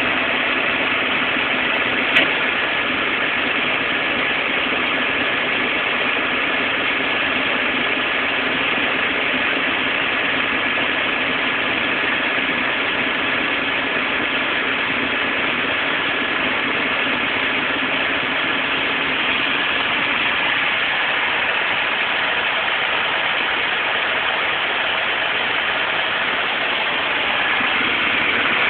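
Heavy farm machinery engine running steadily while harvesting sugarbeets, with the machinery's constant mechanical noise. A single brief click about two seconds in.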